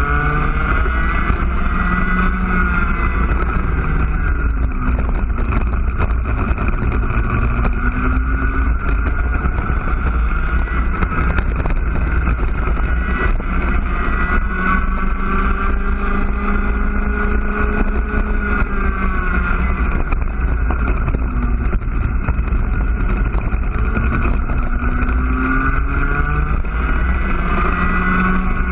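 IAME two-stroke cadet kart engine running at high revs through a lap. Its pitch rises along the straights and drops off into the corners, several times over.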